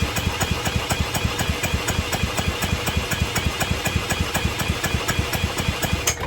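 Small single-cylinder Briggs & Stratton four-stroke engine of a pressure washer running in even firing pulses on brake cleaner sprayed into the carburetor, then cutting out suddenly near the end. It will not keep running on the brake cleaner.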